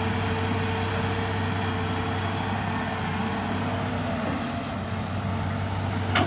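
Heavy diesel engine running steadily at a constant pitch, with a short sharp knock just before the end.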